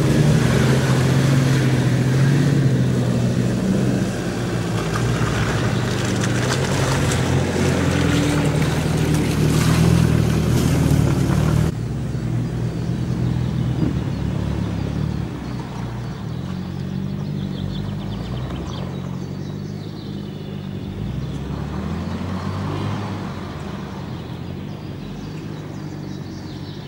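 Off-road SUV engines running at low speed as the 4x4s crawl one after another through ruts and mud. The engine sound is loud at first, drops abruptly about twelve seconds in, and carries on more quietly after that.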